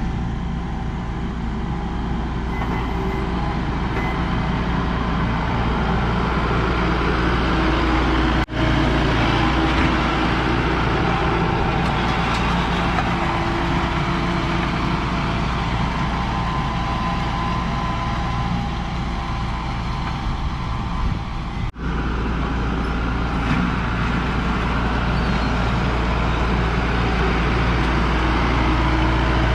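A heavy vehicle's engine running steadily at an even speed, dropping out very briefly twice.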